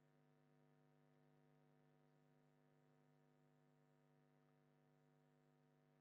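Near silence, with only a faint steady electrical hum.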